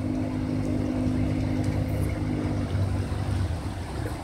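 Outboard motor of a small fishing boat running steadily on the river, its hum dropping away about two and a half seconds in, over a steady low rumble.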